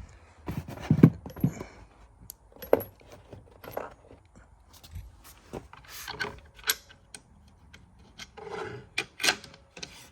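Small metal screws clinking and rattling in irregular taps as they are handled and dropped into the countersunk holes of a trolling-motor quick release bracket base, with some rubbing and scraping of parts between the clicks.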